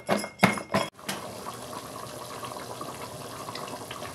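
Palm fruits being washed by hand in a plastic basin of water: a few rhythmic swishes and splashes about three a second. About a second in these stop abruptly and give way to a steady hiss with faint small ticks from a pot of stew simmering as it is stirred with a wooden spoon.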